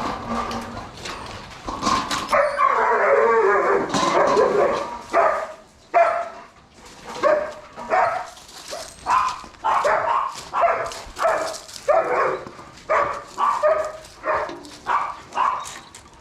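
A dog barking over and over, a bark every half second to a second, after an early stretch of denser, excited barking.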